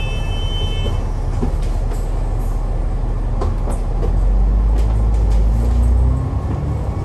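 Alexander Dennis Enviro500 double-decker bus heard from the upper deck as it pulls away from a stop: a steady engine and drive rumble. About four seconds in the rumble grows louder and a rising whine joins it as the bus picks up speed.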